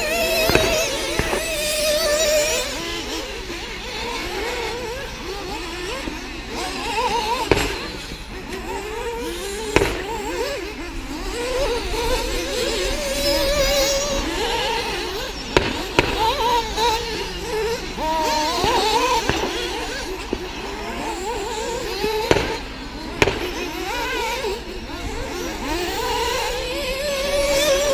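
Radio-controlled model racing cars running on the track, their motors whining up and down in pitch as they accelerate and brake. A handful of sharp knocks are heard as cars land or hit each other.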